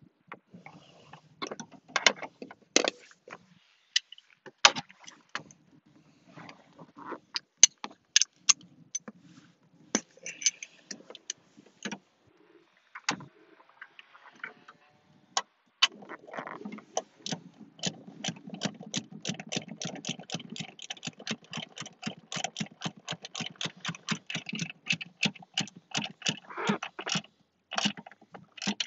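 Hands-on work noises from car parts and tools: scattered sharp clicks and knocks, then from about halfway a quick run of clicks, about three or four a second, over a low steady hum.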